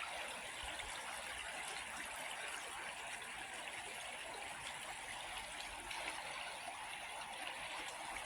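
The Bear River flowing at about 136 cfs: a steady, even rush of running water.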